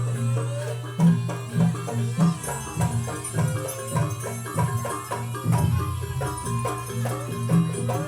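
Live jaranan accompaniment music: a Javanese gamelan-style ensemble led by hand drums playing a fast, driving rhythm, with pitched metal instruments over them.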